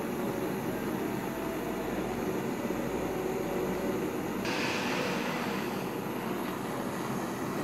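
Small handheld gas blowtorch burning with a steady hiss. About halfway through, the hiss turns brighter and sharper and stays that way.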